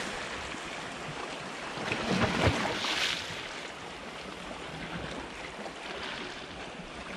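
Sea waves washing against shoreline rocks, with wind noise on the microphone; the wash swells louder about two to three seconds in.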